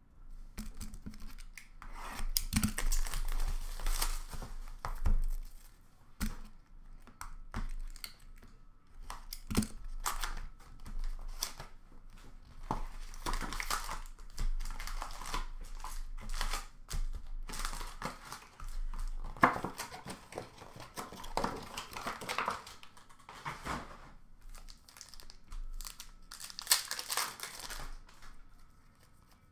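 Hockey card packs being torn open by hand: the wrappers tear and crinkle in irregular bursts, with cards rustling and clicking as they are handled.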